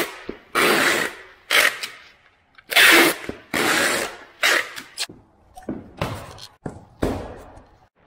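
Black plastic stretch film pulled off its roll and wound around a parcel: a run of about a dozen loud, crackling rasps of unequal length as the film stretches and peels.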